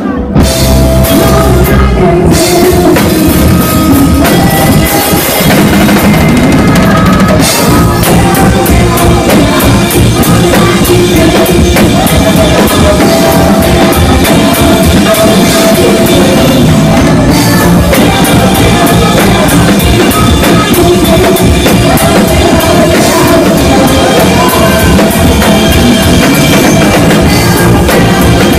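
Live rock band playing loudly, the drum kit to the fore with electric guitar underneath.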